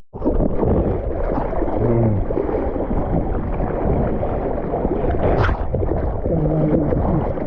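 Wind buffeting the microphone over the rush of ocean surf, with a brief swell of rushing water about halfway through and two short, distant voice-like calls.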